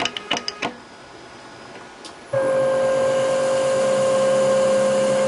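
Emco Turn 220 P CNC lathe: a few quick mechanical clicks, a short lull, then a bit over two seconds in a motor starts abruptly and runs on with a steady, high whine.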